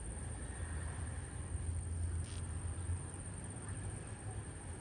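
Steady outdoor background: a low rumble with a constant thin, high-pitched insect drone, and a brief hiss about two seconds in.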